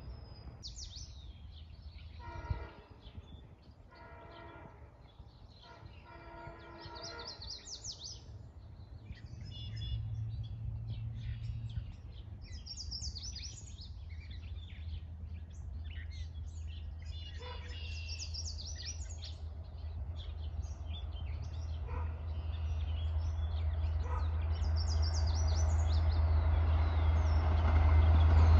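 Long Island Rail Road diesel train approaching. Its horn sounds three times in the first seven seconds or so, then a low rumble builds steadily and is loud by the end. Birds chirp throughout.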